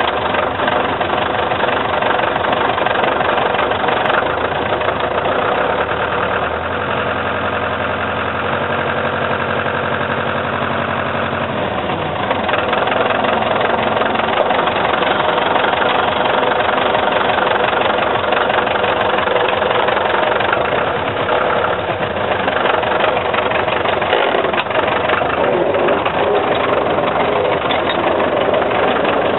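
A car on the move: its engine runs under a constant wash of driving noise. For several seconds about a fifth of the way in, the engine note holds a steady low hum before the sound goes back to its even rush.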